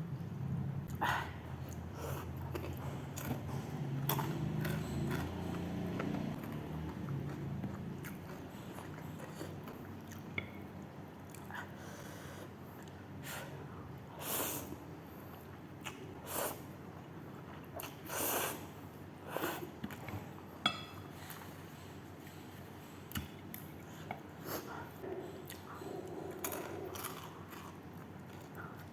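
Close-miked chewing and eating of spicy instant noodles and macaroni, with scattered short clicks and a few louder mouth noises.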